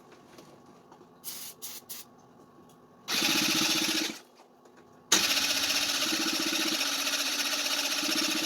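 Electric starter cranking a Kymco 150cc scooter engine in two bursts, about one second and then about three and a half seconds, with a fast even chug. Each burst cuts off without the engine catching, because the emptied carburetor float bowl has not yet filled with fuel. A few short clicks come before the first crank.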